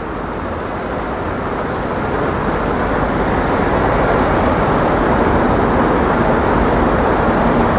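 Street traffic noise, swelling steadily louder as a vehicle draws near.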